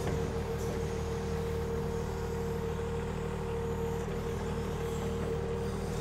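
Kubota diesel engine of a KYMRON XH26 mini excavator running at idle while the machine digs. A steady low drone with a held whine over it.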